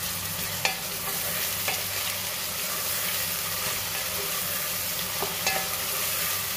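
Finely chopped onions sizzling steadily in hot oil in an aluminium pot. A wooden spatula stirs them, with a few light clicks as it scrapes and taps the pot.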